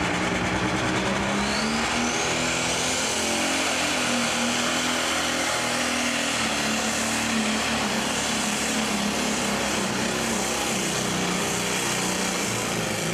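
Turbocharged diesel engine of a pro stock pulling tractor running flat out under load as it drags a weight-transfer sled down the track. A high whistle rises in pitch about two seconds in over the steady, loud engine note.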